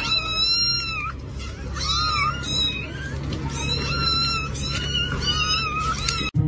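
Kittens meowing repeatedly in high, thin calls, the first drawn out for about a second and the rest shorter, over a low steady hum.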